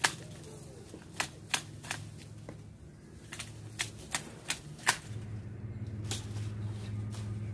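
Long-handled pruning shears snipping conifer shoots: about nine sharp cutting clicks in quick runs. After about five seconds the snipping stops and a steady low hum comes in.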